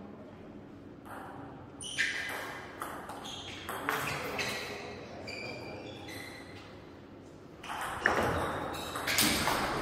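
Table tennis rally: the ball clicking in quick succession off the paddles and bouncing on the table with short pings, starting about two seconds in, with the loudest, busiest hits near the end.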